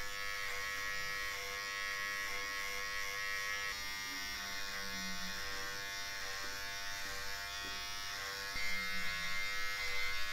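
Electric beard trimmer running with a steady buzz as it cuts through beard hair along the chin and jaw.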